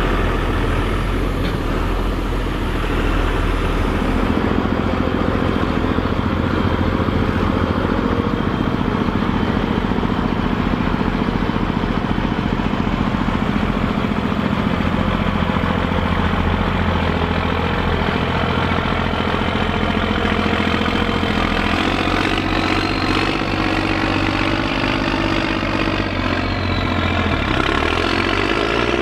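Large farm tractor diesel engines running steadily. A high whine rises and falls near the end.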